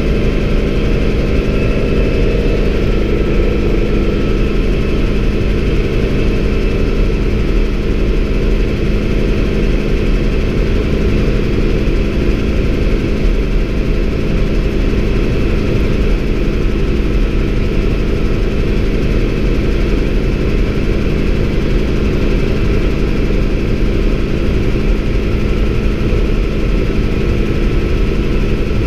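Bell 47 helicopter's piston engine and rotor running steadily at flight power during the climb-out, heard from inside the doorless cabin. It is loud and even throughout, a constant engine tone over the rush of air.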